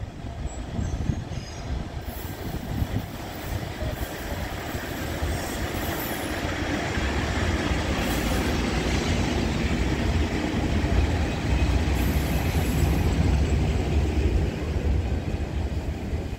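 Passenger train behind an electric locomotive rolling past along the platform, its wheels rumbling and clattering on the rails. The sound grows louder over the first ten seconds or so as the locomotive and carriages go by.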